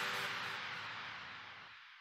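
The tail of an electronic background music track fading away, dying out to near silence by the end.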